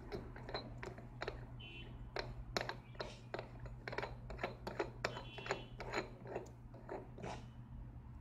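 Irregular clicks and ticks from a rotary paddle level indicator as its shaft is turned and held by hand, over a steady low hum.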